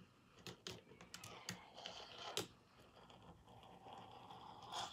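Faint, scattered clicks and taps of a fingerboard's deck and wheels on a wooden tabletop as fingers push, flip and land it.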